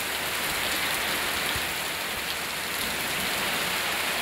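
Heavy rain falling steadily, an even hiss of a downpour.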